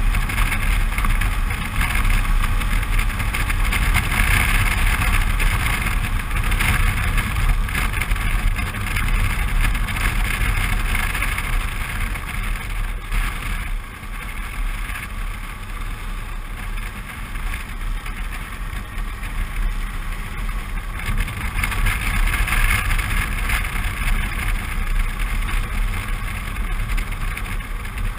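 Suzuki V-Strom 650's V-twin engine running at road speed, mixed with wind rush on the microphone. It drops in level for several seconds around the middle, then picks up again.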